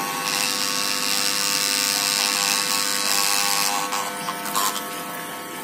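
Electric hair clipper running with its blades dipped in a cup of kerosene: a steady motor buzz, with a hiss of churned liquid for most of the first four seconds while the blades flush out black grime. A few light knocks near the end.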